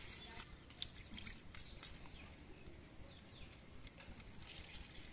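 Small knife scraping and tapping on a goat trotter over a wooden chopping block: light, irregular clicks, with one sharper click about a second in. Faint bird chirps sound in the background.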